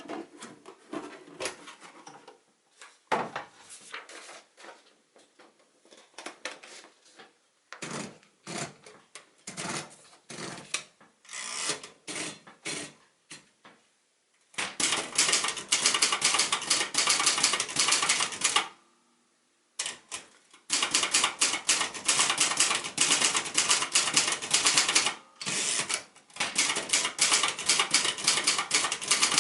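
Silver-Reed Silverette manual portable typewriter: scattered single clicks and knocks for about the first half, then fast, continuous typing with rapid key strikes, pausing briefly twice.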